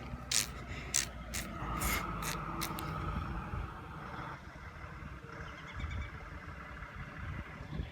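A vehicle engine rumbling in the distance, with several sharp clicks in the first three seconds and a faint steady tone that stops about four seconds in.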